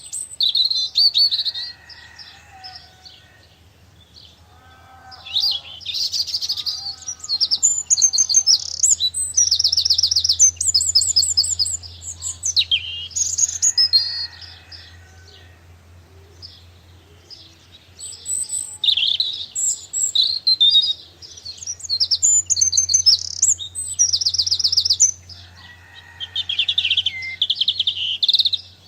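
Garden songbirds singing: high-pitched phrases of fast trills and chirps, several phrases with short pauses between them, over a faint steady low hum.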